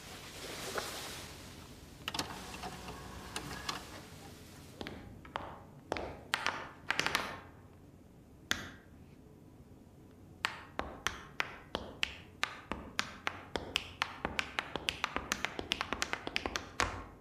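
Tap-dance shoes clicking on a hard floor: a few scattered taps, then from about ten seconds in a steady run of taps that quickens toward the end.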